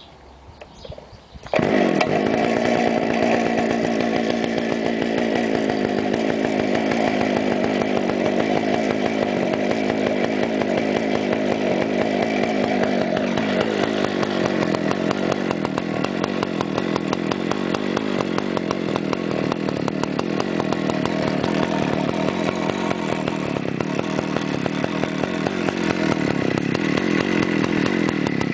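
Old Partner two-stroke chainsaw engine starts about one and a half seconds in, then runs steadily with a rapid, buzzy firing pulse. Its note shifts slightly about halfway through.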